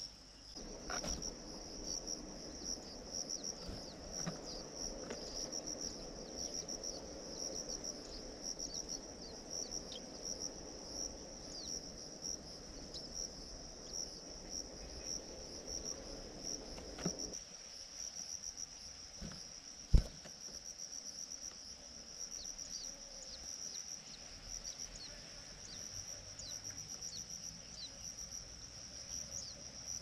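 An insect, cricket-like, trills steadily in a high, rapidly pulsing chirr, with faint short high chirps scattered over it. A low rumbling noise underneath cuts off suddenly about 17 seconds in, and a single sharp knock comes about 20 seconds in.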